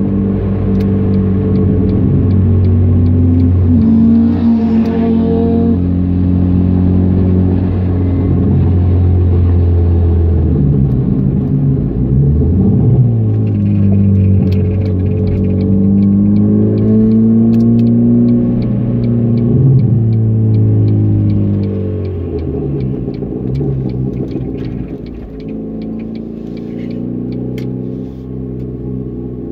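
Car engine heard from inside the cabin, driven hard on a circuit: its pitch holds high, drops, then climbs and falls repeatedly through gear changes and lifts. Near the end it eases to a quieter, lower-pitched run as the car slows.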